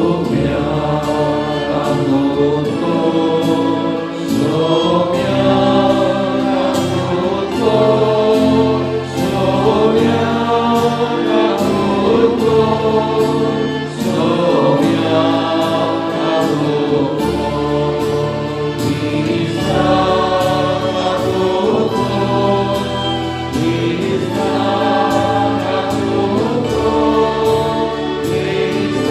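A church choir singing a hymn, led by a male voice, with violin and strummed guitar accompaniment at a steady pulse.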